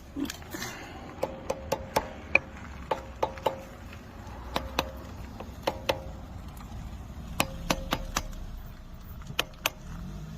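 Small brass hammer tapping on the metal parts of a 4x4 wheel hub, a run of about two dozen sharp, irregularly spaced taps, many with a brief metallic ring, knocking a part loose.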